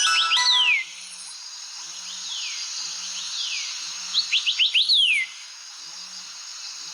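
Mobile phone ringtone: a short melody cuts off about a second in, then a birdsong tone follows. It repeats quick chirps and falling whistles over a steady hiss, loudest a little past the middle.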